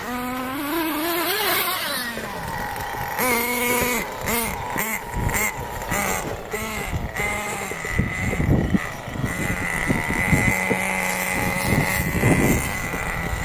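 Small nitro engine of a radio-controlled car revving up and down in quick blips, then holding a steady high-pitched buzz.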